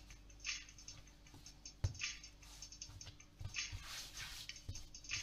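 Hands kneading dough on a silicone pastry mat: soft, irregular rubbing and pressing strokes about once a second, with one light knock about two seconds in.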